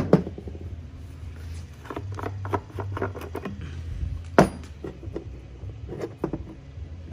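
Scattered light clicks and knocks of small aluminium air-filter parts being handled and set down, with one sharper knock about four seconds in, over a low steady hum.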